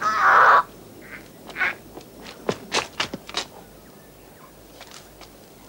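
A woman's strangled scream while held by the throat, cutting off about half a second in, followed by a few short cries and several sharp cracks between about one and three and a half seconds in.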